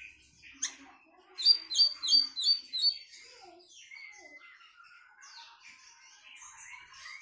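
Tledekan Melayu songbird singing: a sharp call, then a quick run of five or six loud, clear, down-slurred whistles, followed by softer varied twittering.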